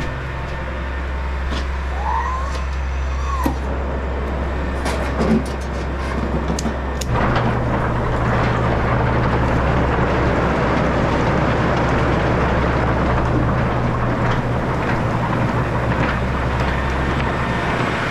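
Farm machinery engine running steadily with a low drone. About seven seconds in it steps up to a louder, fuller machine noise that holds steady, with a few clicks and squeaks before the change.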